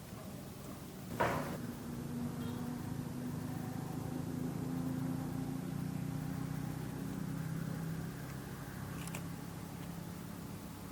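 A single sharp knock, then a low, steady motor hum that swells over a few seconds and fades again.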